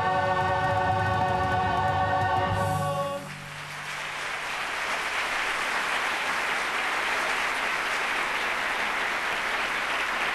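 A large chorus of singers holds a final chord that cuts off about three seconds in; audience applause then rises and continues.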